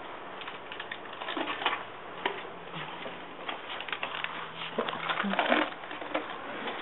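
Wrapped candy rustling and clattering in a plastic bucket as a hand rummages through it, a run of irregular crinkles and clicks, busiest about a second and a half in and again around five seconds.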